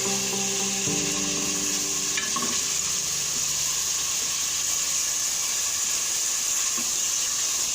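Chicken pieces frying in hot oil in a pan, a steady sizzle that runs on evenly.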